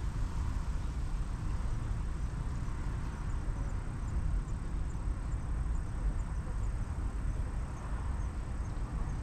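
Outdoor riverside ambience: a steady low rumble and hiss, with faint, evenly spaced high chirps of an insect, about two or three a second.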